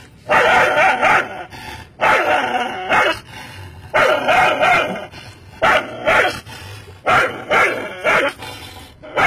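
Chippiparai dog barking and snarling in a string of loud barks, spaced out at first and coming faster in the second half. It is guarding its gate against a man reaching toward it.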